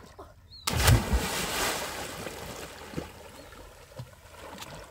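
A person jumping into deep water: one loud splash just under a second in, then water churning and sloshing as it settles.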